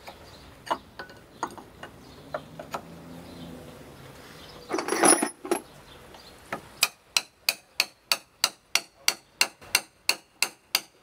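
Hammer tapping a stainless steel tube through a drilled hole in a wooden boat's hull, the rope guide for the steering lines. From about seven seconds in come steady, sharp metallic taps, about three a second. Before that there are a few light scattered knocks and one brief louder noise about five seconds in.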